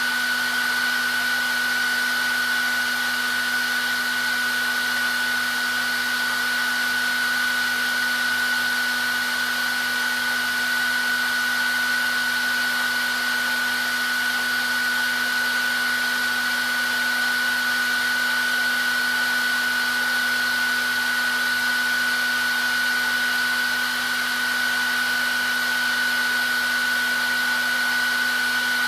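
Hair dryer running steadily: a continuous blowing rush with a high motor whine held on one pitch.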